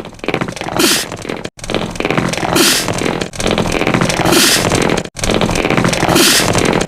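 An anime character's voice-acted sneeze looped over and over, each copy made of many overlaid layers so it sounds like a dense chorus of sneezes. The loop comes round about every second and three-quarters, with a hissing 'choo' burst four times.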